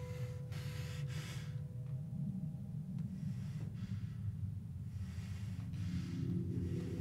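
A man gagged with tape breathing hard through his nose, several sharp breaths over a steady low drone. A low pitched tone swells in near the end.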